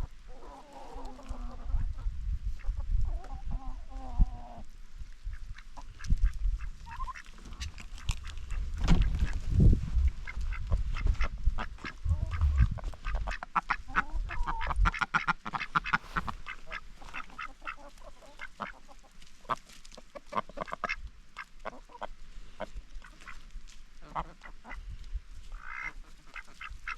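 Farmyard ducks quacking and honking among other poultry, with calls strongest in the first few seconds and again briefly near the end. A dense run of short clicks and taps fills the middle stretch, with a low rumble under the first half.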